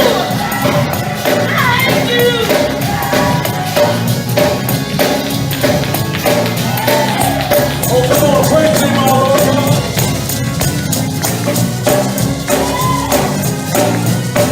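Live gospel praise music: a tambourine keeps a fast, steady beat under singing voices and low sustained notes.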